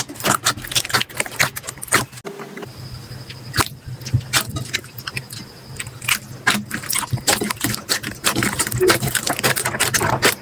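Slime being squeezed, poked and stretched by hand, giving a dense, irregular run of sticky clicks and pops, with a brief break about two seconds in.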